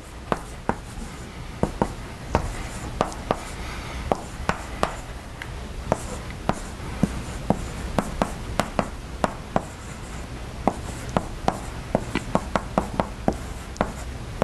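Chalk writing on a blackboard: irregular sharp taps and short scratches as strokes and symbols are written, several a second, over a steady low hum.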